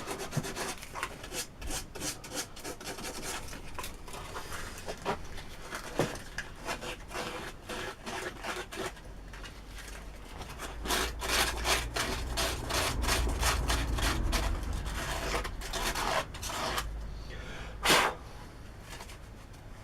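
Hand tool scraping and rubbing on wood in many short, uneven strokes, cleaning up a freshly drilled hole in a wooden block, with one sharper knock near the end.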